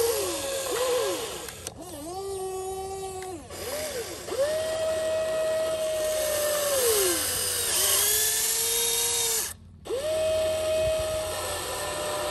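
Electric motors of a Huina RC excavator whining as the boom, bucket and turntable work. The pitch glides up and steps down as each motor starts and stops under load, and the sound cuts out briefly about ten seconds in.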